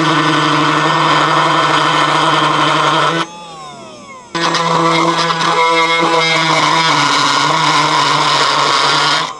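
Homemade battery-powered rotary tool running with a burr bit grinding into a wooden board, giving a high, steady motor whine. About three seconds in it is switched off and winds down. It starts again a second later and winds down once more near the end.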